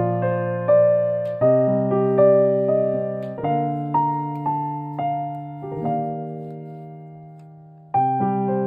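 Slow, gentle background music of struck notes that ring and fade. One chord is left to die away for about two seconds before a new phrase starts near the end.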